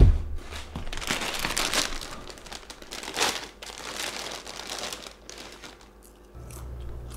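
A thump as a person drops heavily onto a couch, then a crinkly potato-chip bag rustling and crackling as a hand rummages in it, loudest in the first few seconds before tapering off.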